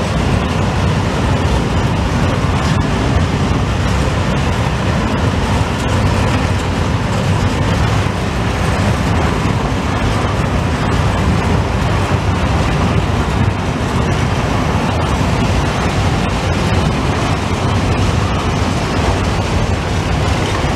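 Long freight train of open-top wagons rolling past close by: a loud, steady rumble of steel wheels on the rails.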